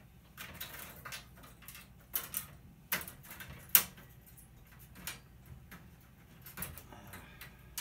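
Irregular clicks, taps and light rattles of plastic and thin metal parts being handled on a stripped LCD TV backlight panel, with one sharp snap a little under four seconds in.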